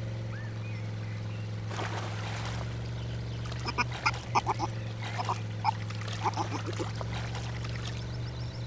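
Cartoon baby otter squeaking: a string of short, high squeaky calls in the middle, over a steady low hum.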